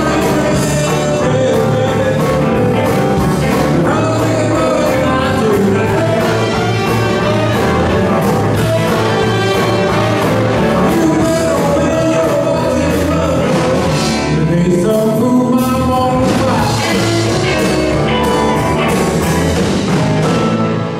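A rock-and-roll band playing live through a PA: electric guitars and a drum kit over a steady beat.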